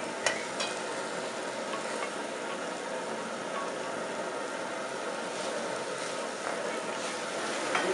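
Chopped goat trotters sizzling steadily as they are tipped into hot oil and masala paste and stirred in the pan, with two sharp clinks near the start.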